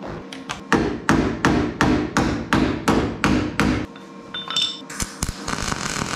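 A hammer striking metal: about a dozen quick, ringing blows, three to four a second. Near the end an electric welder strikes an arc and crackles steadily.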